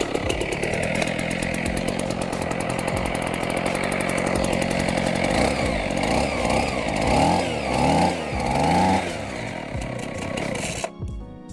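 Atlas Copco Cobra two-stroke petrol concrete breaker running with rapid hammering, its engine revving up and down in several swells about two-thirds through, then stopping suddenly near the end.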